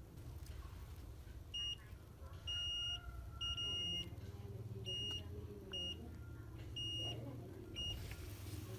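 Multimeter continuity beeper sounding about seven times, some beeps short and some held for half a second, as the probes touch circuit-board traces that are shorted together. A steady low hum runs underneath.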